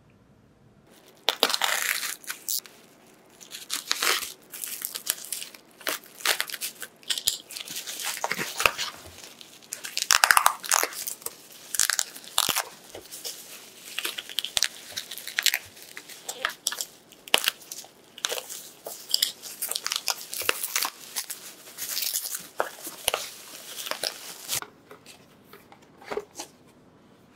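Bubble wrap being pulled apart and torn off a boxed parcel by hand: dense, irregular crinkling and tearing. It starts about a second in and stops shortly before the end.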